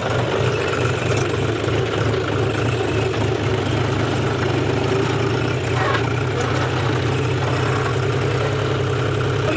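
John Deere tractor's diesel engine running steadily as the tractor is driven along, heard from the driver's seat.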